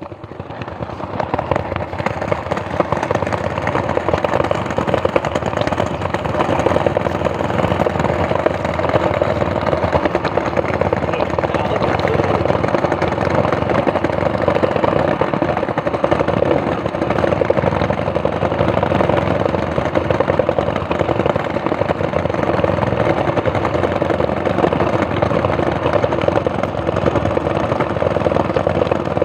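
Small plastic cruiser skateboard's wheels rolling over an interlocking concrete paver road: a steady, rapid rattling rumble from the joints between the pavers, building up over the first couple of seconds as the board gets going.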